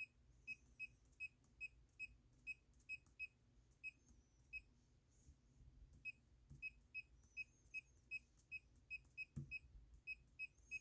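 Amerteer laser projection keyboard giving its faint electronic feedback beep for each key pressed while typing, a short high beep roughly two or three times a second in uneven runs, with a pause of about a second and a half near the middle.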